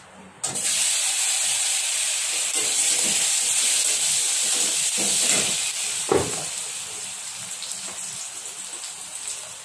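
Potato pieces dropped into hot oil in a steel kadai, bursting into a loud sizzle about half a second in that slowly dies down over the next several seconds. A steel spatula clinks sharply against the pan about six seconds in.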